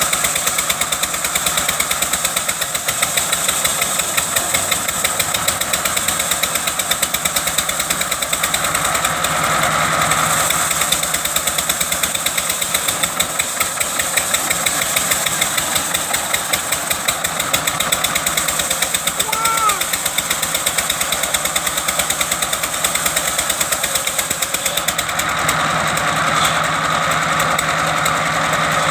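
Engine of a wood-cutting machine running steadily with a fast, even beat; its note shifts a little near the end.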